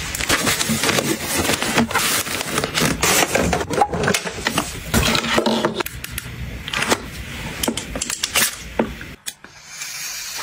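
Rustling and scraping of a fabric pouch and a plastic case being handled while a portable garment steamer is unpacked, with many small clicks and scuffs.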